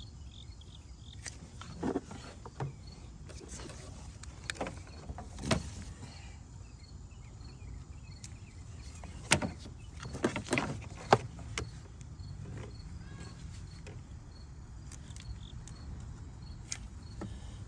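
Scattered clicks and knocks of hand tools working spring hose clips off a coolant hose, the loudest about nine and eleven seconds in, over a low steady hum and faint insects chirping.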